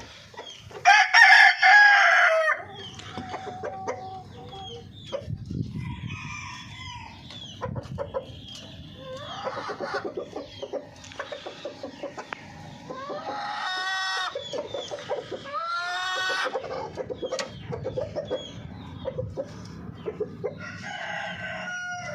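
Golden Misri chickens clucking over and over, with one loud drawn-out call about a second in and several shorter calls later on.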